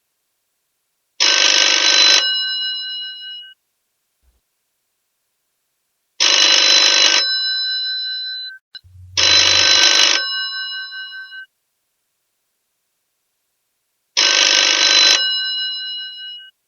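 An old telephone's bell ringing in four bursts. Each burst is about a second of rapid clattering ring, followed by the bell tones fading away. The second and third bursts come close together, and the others are about five seconds apart.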